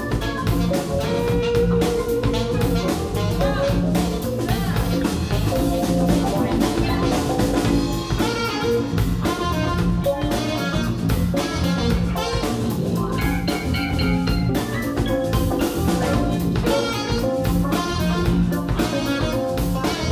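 Live band playing an instrumental passage: drum kit keeping a steady beat under electric guitar, bass, keyboards and alto saxophone, without vocals.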